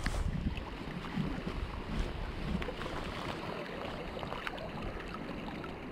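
River water flowing and lapping close around a wading angler, with wind buffeting the microphone and scattered small clicks.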